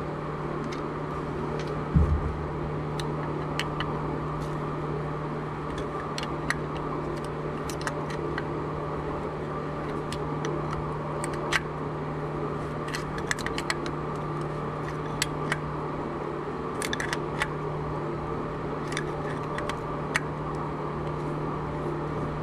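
Scattered sharp clicks and light metal taps from a ratchet wrench and hand tools being worked on the engine while cooling hoses are fastened, over a steady low hum. One louder knock about two seconds in.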